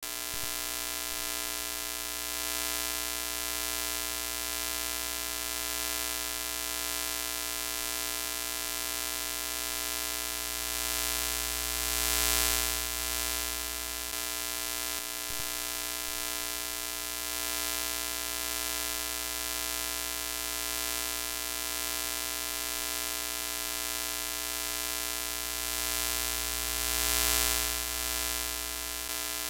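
Broken-TV sound effect: a steady electrical hum and buzz under a hiss of screen static, swelling louder twice.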